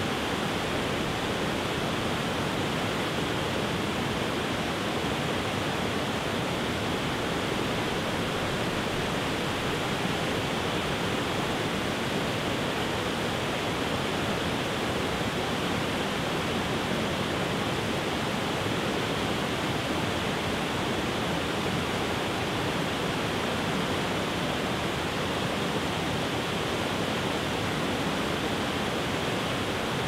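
Broad waterfall cascading over rock ledges into whitewater below: a steady, even rush of water that does not change.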